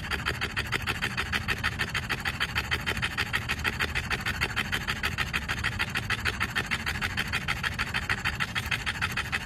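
Short-nosed bulldog-type dog panting hard and fast, a steady rhythm of about five or six breaths a second.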